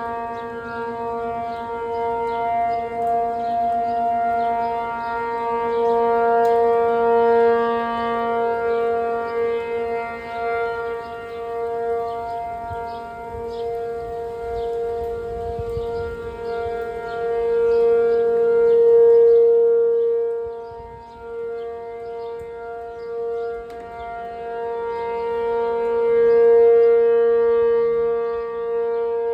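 P-50 outdoor warning siren sounding in alert mode: one steady, unbroken tone that does not rise or fall in pitch, swelling louder and softer every several seconds.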